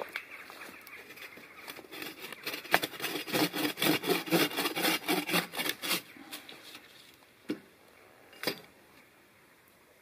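Bow saw cutting through a log, with quick back-and-forth strokes for about four seconds. Two separate knocks follow near the end.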